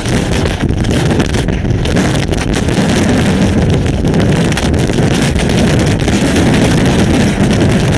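Severe derecho winds blasting the webcam's microphone in a steady, loud rumble, with wind-driven hail and rain lashing through it.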